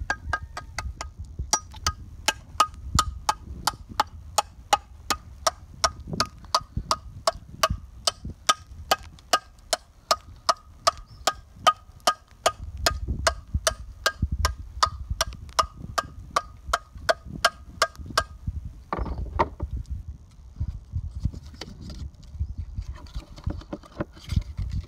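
A claw hammer striking a conch shell in quick, even knocks, about three a second, each with a short ring. The knocking stops about 18 seconds in, as the shell is broken open for the knife.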